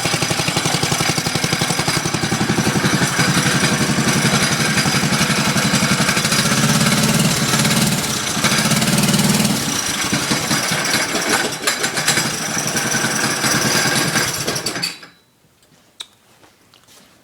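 Small 7-horsepower engine of a Bird three-wheeler running with a rapid, even beat, then shut off suddenly about fifteen seconds in, leaving a few faint clicks.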